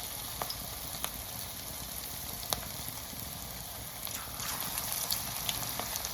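Pakoras deep-frying in hot oil: a steady sizzle with scattered pops and crackles.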